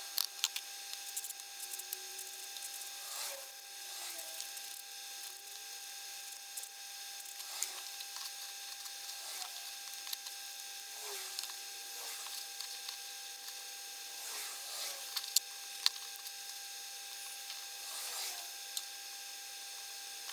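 Hand file scraping a small titanium watch-clasp part in slow strokes about every one and a half to two seconds, each stroke with a short squeak. A faint steady high tone runs underneath.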